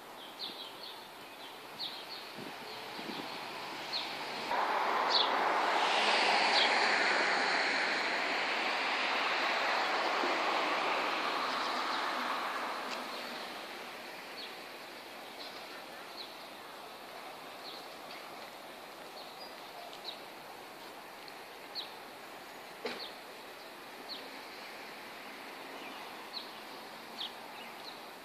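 A vehicle passes along the street, its tyre and engine noise swelling about four seconds in and fading away over the next ten seconds. Short high bird chirps come and go throughout.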